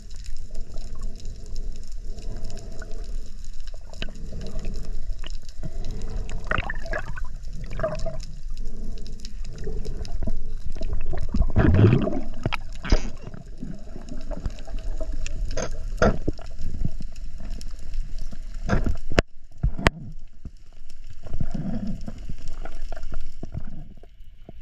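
Water sloshing and gurgling around a camera held in or at the surface of the sea while spearfishing, with scattered knocks and two sharp clicks near the end.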